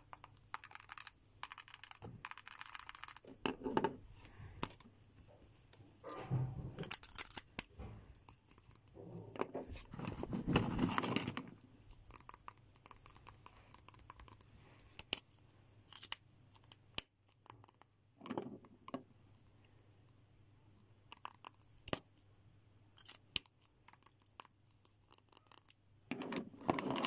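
Plastic twin-tip sketch markers handled close up: sharp plastic clicks of caps and barrels, and short scrapes and rubs as they are turned and set down, with a longer rubbing stretch about ten seconds in.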